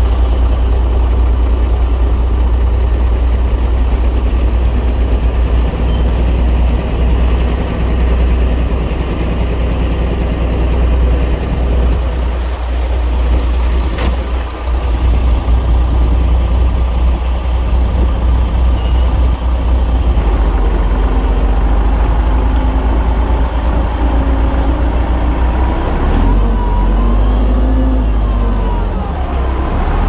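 Heavy diesel earthmoving machinery running with a deep, steady engine rumble. One sharp click comes about halfway through, and over the last ten seconds the pitch rises and falls several times as the machine works.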